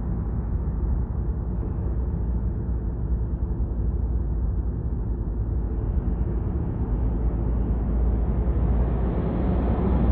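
Steady low rumble of an idling diesel truck engine, growing a little louder near the end.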